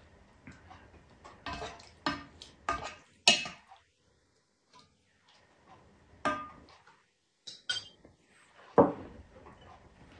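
Serving spoon clinking and scraping against a pot and a ceramic plate as mung bean stew is spooned onto rice: a string of separate short clinks and knocks with quiet gaps between them.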